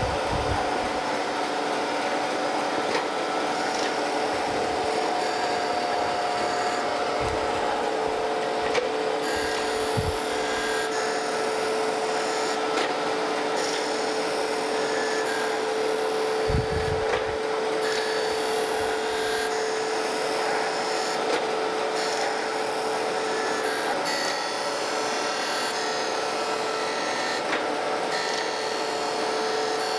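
Landis surface grinder taking a light half-thousandth pass across straight edge castings on slow table feed. The wheel's hissing grind comes and goes at intervals over the machine's steady hum.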